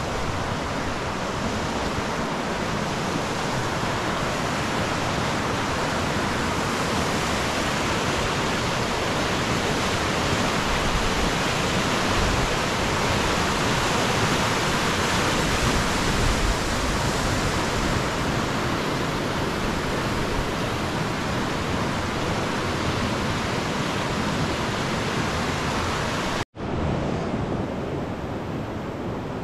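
Rushing water of a mountain river, a loud steady hiss-like roar. Near the end it cuts out for an instant and comes back softer and duller.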